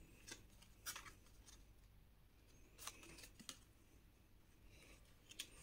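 Near silence with a few faint, brief rustles and ticks of die-cut cardstock being handled and flexed.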